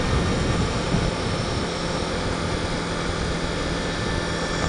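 1998 Honda VFR800's V4 engine running at a steady cruise under the rider, with steady wind and road rush on the helmet-mounted microphone.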